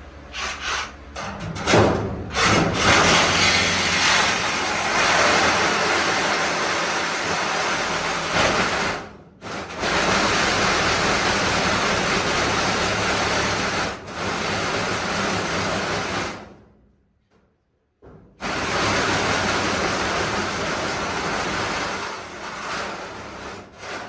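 Reciprocating saw (Sawzall) cutting through sheet-metal ductwork, the return boot under a furnace. A few short starts, then long runs of cutting with a brief pause, a stop of a second or two about two-thirds through, and another long run.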